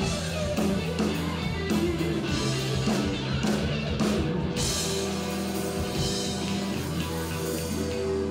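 Background music with drums and guitar.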